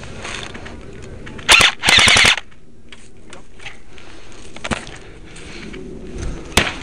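Airsoft electric rifle firing two short full-auto bursts, a quick rattle of rapid shots about a second and a half in. Later come a couple of single sharp clicks.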